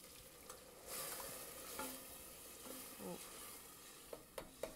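Crushed tomatoes poured into a hot pot of oil, onions and meat, hissing faintly, with the hiss rising about a second in and then fading. A wooden spoon stirs and knocks against the stainless steel pot several times near the end.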